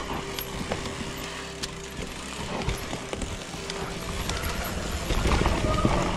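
Electric mountain bike rolling down a dirt forest trail: tyres rumbling over roots and loose ground, with scattered clicks and rattles from the chain and frame. The rumble grows louder from about five seconds in.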